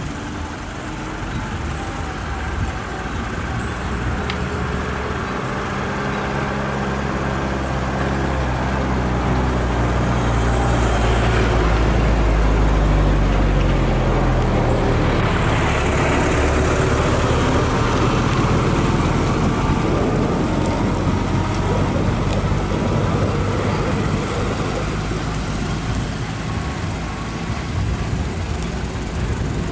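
An engine running with a low hum that grows louder over the first dozen seconds, its pitch sliding down about halfway through.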